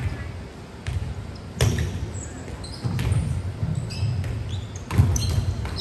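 Volleyballs being hit and bouncing on a gym floor: several sharp smacks, the loudest about a second and a half in and near the end. Short high squeaks of sneakers on the court come in between.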